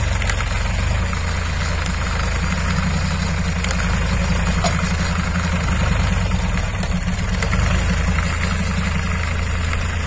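Massey Ferguson 7250 DI tractor's three-cylinder diesel engine running steadily as it pulls a round straw baler working through paddy straw.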